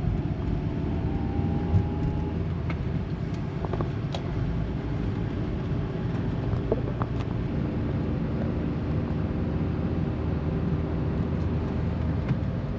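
Audi A2's 1.4-litre four-cylinder petrol engine and road noise heard from inside the cabin while driving, a steady hum without lifter clatter. It is running on freshly replaced hydraulic lifters, which the owner takes to have been the cause of the ticking, probably from too little oil.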